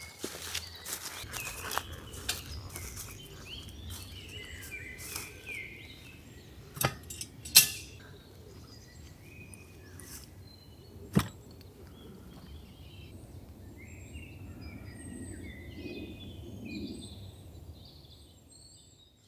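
Birds chirping in the woods, with scattered sharp clicks and knocks. The three loudest clicks come about 7, 7.5 and 11 seconds in.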